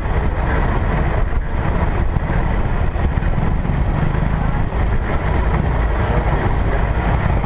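Car driving slowly, heard from a camera on its bonnet as a loud, steady rumble that is heaviest in the low end.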